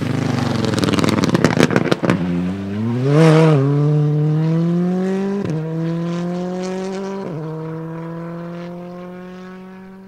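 Hyundai i20 rally car's engine, with a rapid run of crackles and pops, then accelerating hard away with its pitch climbing. It shifts up twice and fades into the distance.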